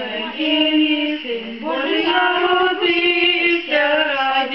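A woman and two boys singing a Ukrainian Christmas carol (koliadka) together without accompaniment, in long held notes.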